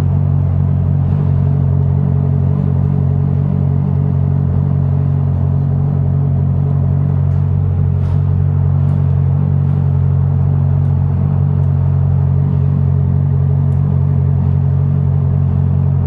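Honda CBR650F's inline-four engine idling steadily, with no revving.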